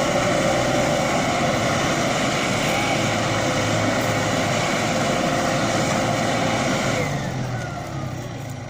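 Tümosan 6065 tractor's diesel engine running steadily while pulling a five-bottom plough. About seven seconds in, its pitch falls and it gets quieter as the revs drop.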